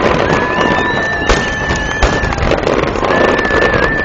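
Aerial fireworks display: a dense, continuous crackling of bursts, with two sharp bangs about a second apart near the middle and high, steady whistling tones held above the crackle.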